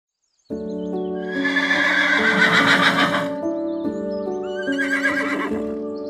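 An equid whinnying, a long wavering call that falls in pitch, then a shorter call near the end, over background music.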